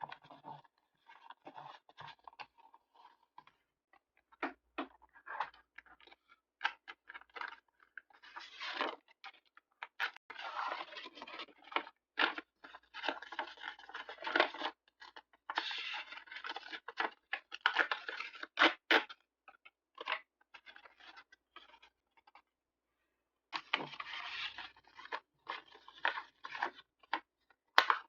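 Paper being handled for diary decorating: irregular rustling and crinkling, with scattered taps and clicks. There is a brief pause about three-quarters of the way through.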